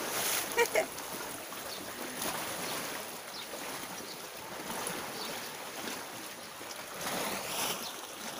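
Sea water washing and lapping against a rocky shore, a steady wash that swells briefly near the end. Two short, sharp sounds stand out just under a second in.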